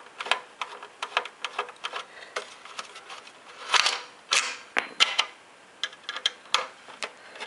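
A Torx screwdriver undoing the casing screws of an Xbox 360 Slim: a run of quick, irregular clicks, with two longer, louder scraping noises about four seconds in.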